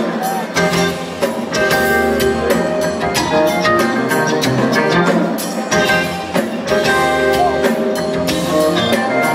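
Live rock band playing on stage: electric guitars, bass, drums and keyboards, heard from out in the audience.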